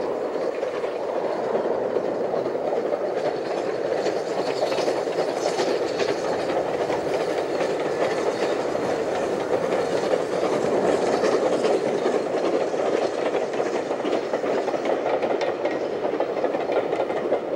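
Great Western Railway pannier tank steam locomotive and its coaches running past: a steady rolling rumble of wheels on rail, with faint clicks of the wheels over rail joints.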